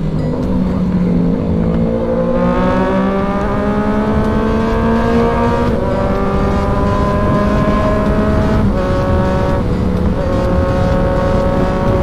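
Sport motorcycle engine accelerating hard through the gears: its pitch climbs steadily, breaking for quick upshifts about six and nine seconds in, then holds fairly level near the end.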